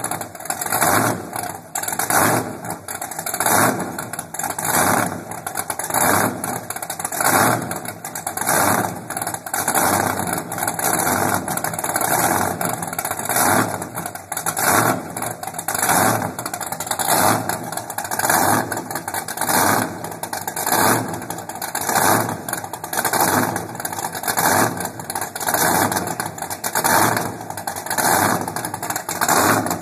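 Inboard engine of an offshore powerboat running on its trailer, out of the water, exhausting through open transom exhaust tips. Its loudness swells and falls about once a second.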